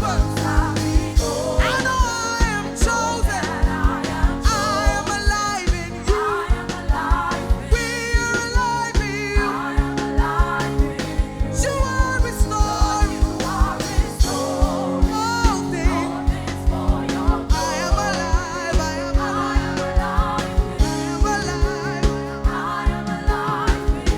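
Live gospel worship music: a band plays sustained chords over a steady drum beat while a voice sings over it.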